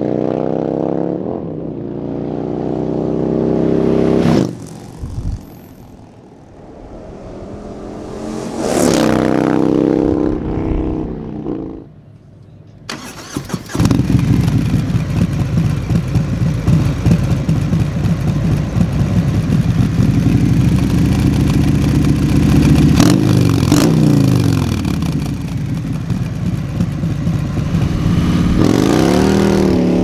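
Harley-Davidson Milwaukee-Eight 114 V-twin with an S&S 465 cam, breathing through a Bassani Road Rage III 2-into-1 exhaust. The motorcycle accelerates past twice in the first dozen seconds, then after a short lull the engine is running steadily in place, with a throttle rev rising and falling a little past the middle and another rev near the end.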